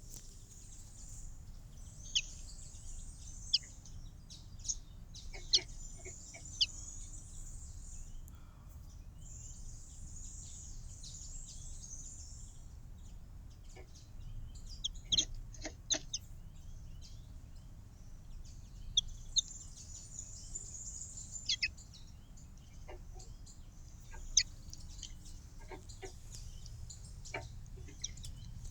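Small garden birds twittering in high-pitched bursts of chatter every few seconds, with scattered sharp chip notes, over a steady low background rumble.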